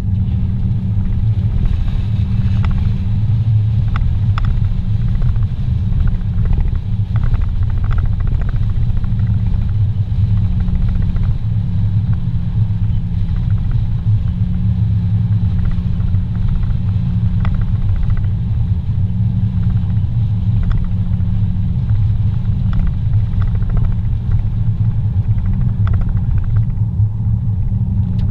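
Steady low rumble of a car's engine and tyres heard from inside the cabin while driving on a highway, with a constant low hum and a few faint ticks.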